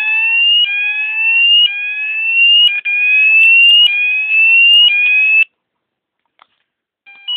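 Fulleon Roshni fire alarm sounder on its BS Sweep tone: a loud electronic tone rising in pitch over about a second and restarting, about five times, then cutting off suddenly. Near the end it starts again on a two-pitch alternating tone.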